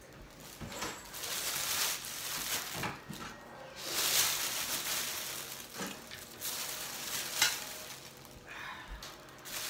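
Rustling and crinkling of household items, cloth and bags being handled, coming in irregular stretches, with one sharp knock a little past seven seconds in.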